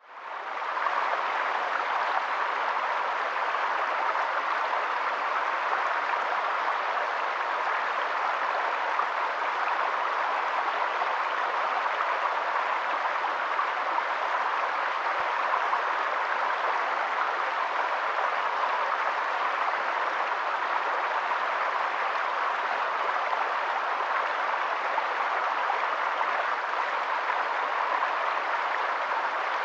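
Steady rushing water, fading in over the first second and then holding even.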